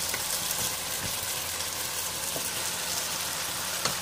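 Steady sizzling hiss from a pan of vegetables and sauce frying on the stove as boiled spaghetti is added, with a few faint clicks.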